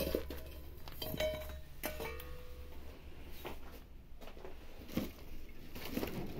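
Stainless-steel feeding bowls clinking as they are handled and set down. Knocks about one and two seconds in each ring briefly with a metallic tone, and there is a softer knock about five seconds in.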